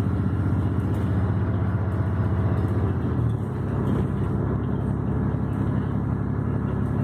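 City bus engine and drivetrain running steadily as the bus drives, heard from inside the passenger cabin. The engine note changes and dips slightly about three seconds in.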